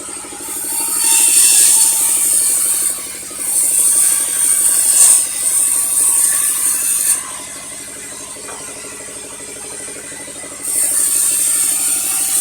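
Sawmill machinery running steadily while the saw cuts through a log: a bright high hiss of cutting comes in about a second in, lasts some six seconds, drops away, and starts again near the end.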